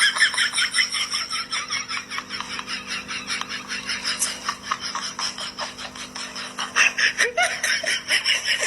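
Someone laughing hard: a long, unbroken run of quick breathy pulses.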